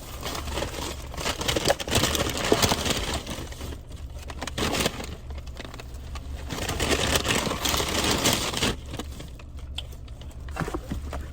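Takeout food bags and packaging rustling and crinkling as the food is handled and unpacked, in several bursts, over a steady low hum.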